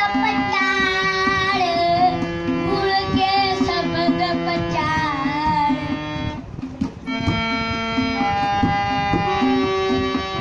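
A boy sings a Sikh shabad (kirtan) to harmonium and tabla accompaniment. After about six seconds the voice stops following a brief dip, and the harmonium and tabla carry on playing the melody and rhythm.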